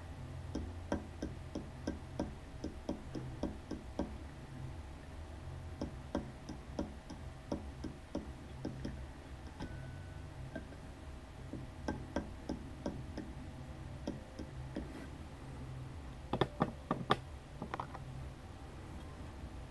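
Light irregular clicks and taps from a Volvo TD04HL-15G turbocharger's compressor wheel and shaft being spun and rocked by hand to check for shaft play, with a cluster of louder knocks near the end. There is a steady low hum underneath. The owner finds the wheel spins freely, with barely any radial play and a tiny amount of axial play.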